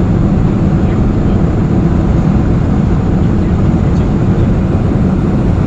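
Steady cabin noise inside a Boeing 747-400 climbing at about 590 km/h: a deep, even rumble of the engines at climb power and air rushing past the fuselage.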